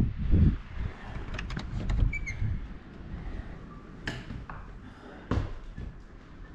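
Wind buffeting the microphone dies away about half a second in, giving way to the hush of a small room. A few light knocks and clicks follow, with a brief high squeak about two seconds in.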